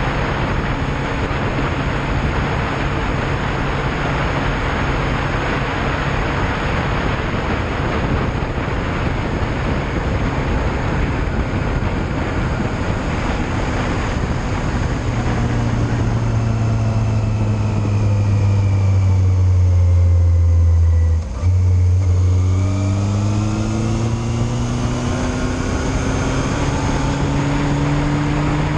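Yamaha Fazer motorcycle engine running at speed under heavy wind and road noise. About halfway through the bike slows and the engine note falls. After a brief dip, the note rises again as it accelerates.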